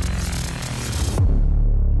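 Electronic intro music with heavy bass: a fast stuttering glitch over the bass cuts off a little over a second in, giving way to a falling sweep and a deep bass drone.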